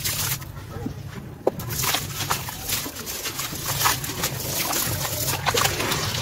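Wet sand-cement chunks crumbled by hand into a basin of water: many small gritty crackles, with splashing and sloshing as the pieces and grit drop in.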